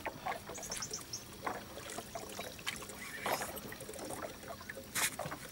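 Faint water splashing and scattered small clicks while a hooked giant snakehead is fought on a bent spinning rod from a small boat, with a louder splash about five seconds in.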